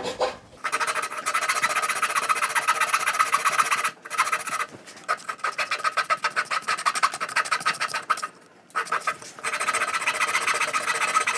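Thin flexible Japanese-style flush trim saw cutting a protruding hardwood inlay of chakte viga flush with a maple surface, across the grain. It makes a fast rasp of short, quick strokes with a steady high tone running through them, in three runs with brief pauses about four seconds and eight and a half seconds in.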